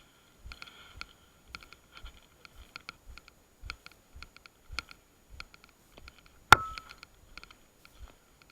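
Walking footsteps with gear clicking and rattling, a short knock or tick about twice a second. About six and a half seconds in comes one much louder, sharp crack with a brief ring.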